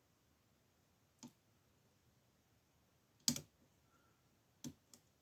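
Lock pick and tension wrench clicking against metal inside an old bronze Yale padlock as it is being picked: four sharp clicks, the one about three seconds in the loudest.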